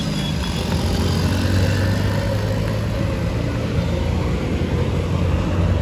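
A motor vehicle's engine running steadily with a low hum, over road and wind noise.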